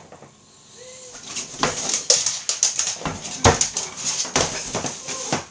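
Clattering and knocking of a raised cot-style dog bed's frame against a hard floor as an English bulldog scrabbles on it and tips it over, picked up by a home security camera's microphone. The knocks come in a quick irregular run, the loudest about two and three and a half seconds in.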